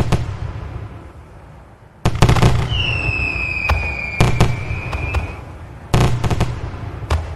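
Fireworks going off: groups of sharp bangs with crackle about every two seconds. A whistling firework gives a high whistle that falls slightly in pitch for about two and a half seconds, starting near three seconds in.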